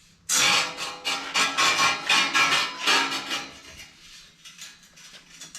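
Metal clattering and rattling, with short sharp clanks and a faint ringing, for about three seconds, then dying down to quieter scattered knocks.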